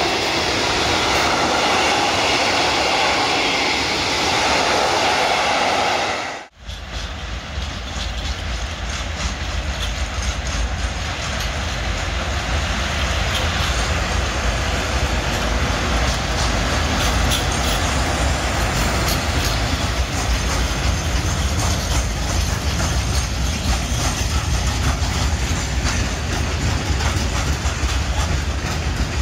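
A freight train of tank wagons rolls past close by. After an abrupt cut about six seconds in, a loaded coal train hauled by an electric locomotive passes, its wheels clicking steadily over the rail joints over a low rumble.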